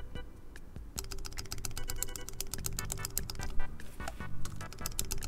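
Mechanical keyboard enter key, fitted with a freshly lubed Cherry clip-in stabilizer, tapped lightly and rapidly over and over to test it for stabilizer tick; the tapping starts about a second in. Background music plays underneath.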